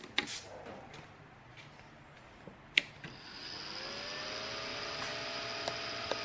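Small clicks of a blue twist-lock power connector being handled into a moving-head beam light's power inlet, then one sharp click about three seconds in as it latches. The light then powers up: its fan and motors start with a whine that rises and settles into a steady whirr.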